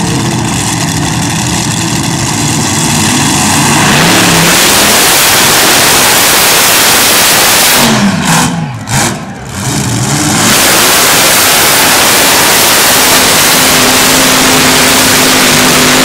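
Multi-engine modified pulling tractor with four racing engines running, idling at first and then opened up to full throttle about four seconds in, very loud. About eight seconds in the engine revs sag and climb back twice as the tractor loses power and nearly stops under the sled, then it runs flat out again to the end.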